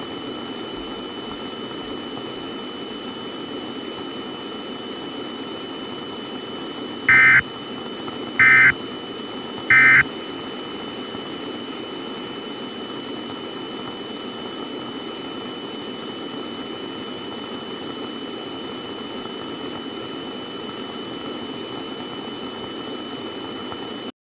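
Steady hiss of broadcast static with a faint high-pitched whine. About seven seconds in it is broken by three short, loud data-tone bursts a little over a second apart: the SAME end-of-message code that closes an Emergency Alert System broadcast.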